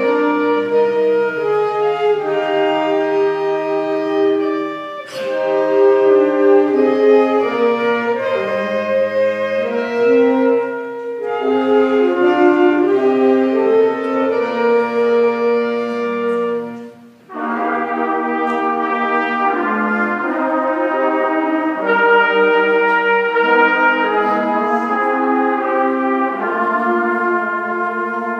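School concert band of brass and woodwinds playing a slow piece in held chords, phrase by phrase, with brief breaks between phrases, the clearest about seventeen seconds in.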